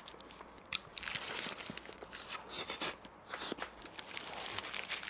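Close-up chewing of a doughnut, mixed with the crackle of its paper wrapper being crumpled in the hands. A quiet start, then from about a second in a continuous run of crinkles and small clicks.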